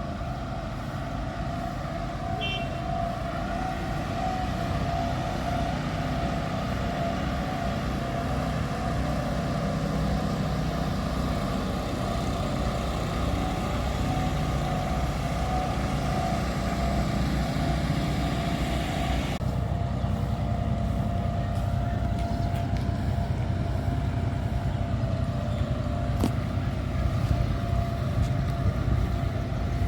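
An engine running steadily, a continuous drone with a constant hum-like tone. A brief high beep comes about two and a half seconds in, and the upper hiss drops away suddenly about two-thirds of the way through.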